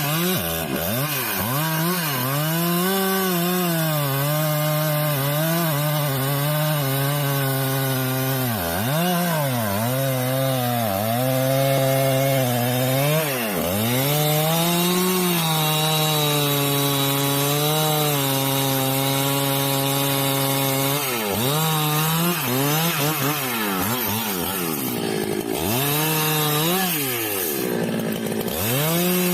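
Chainsaw cutting through wood under load. The engine note sags repeatedly as the chain bites and picks back up between cuts, with the rasp of the chain in the wood throughout.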